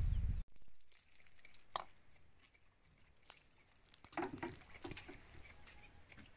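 A louder low rumble cuts off suddenly about half a second in. Then come faint, scattered light clicks and knocks, with a short cluster around four to five seconds in, from handling peeled chayote roots (camote) as they are washed.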